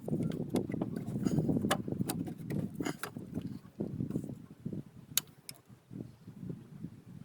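Irregular clinks and knocks of hand tools and metal parts being handled, with rustling and several sharp clicks, busiest in the first three seconds.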